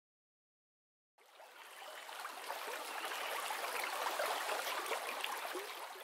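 Silence, then about a second in, running water starts suddenly, a rushing, babbling stream sound that grows louder and holds steady.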